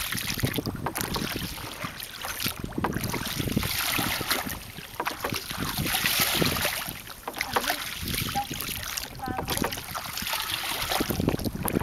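Water splashing and rushing against the hull of a small boat moving through shallow floodwater, with wind buffeting the microphone. The level swells and dips unevenly.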